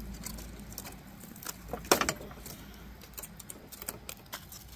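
Broken pieces of old, rotten wooden deck slats with loose screws being picked up and handled, clattering and clicking in scattered knocks, with one louder clack about two seconds in.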